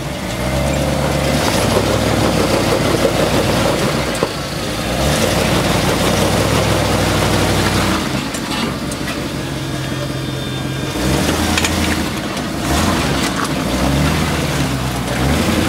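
Lifted Toyota pickup's engine revving up and down in several surges as the truck crawls up a rocky, muddy slope.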